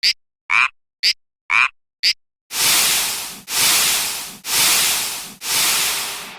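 Cartoon railroad-crossing warning signal made of odd sound effects: a short rasping call alternating with a sharp high click, about two a second, then four long noisy crashes about a second apart, each fading away.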